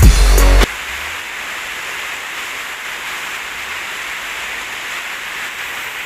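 Electronic music with a heavy bass beat cuts off abruptly under a second in, leaving a steady, even hiss of rain.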